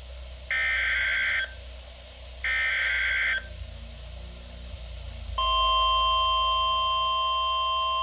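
Emergency Alert System SAME header: two screeching one-second data bursts with a pause between them. About five seconds in, a steady, loud alert tone begins and holds. A low hum runs underneath.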